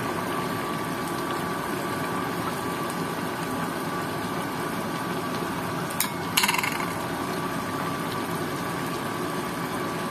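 Chicken afritada stew simmering in a frying pan over a gas burner, a steady bubbling hiss. A brief clatter about six seconds in.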